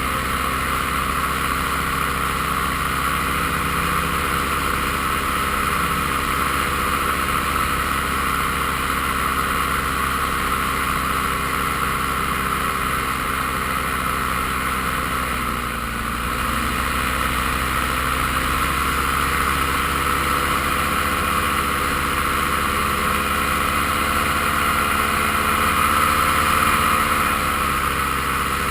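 Paramotor's engine and propeller running steadily in flight, with a brief dip in pitch about halfway through as the throttle is eased back, then opened up again.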